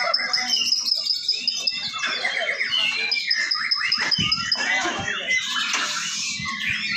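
Many caged white-rumped shamas (murai batu) singing at once in a contest round: a dense tangle of overlapping whistles and chirps, with a long high trill held for a second or more, twice.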